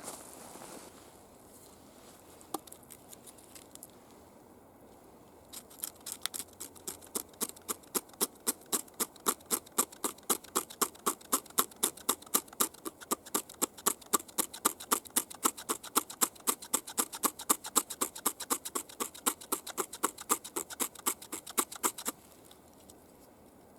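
Hand saw cutting through wood in steady back-and-forth strokes, about three a second. It starts about six seconds in and stops suddenly near the end.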